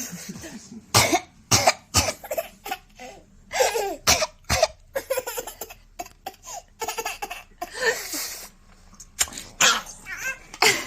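A woman coughing in short, sharp bursts, again and again. Between the coughs a young child laughs in high-pitched fits.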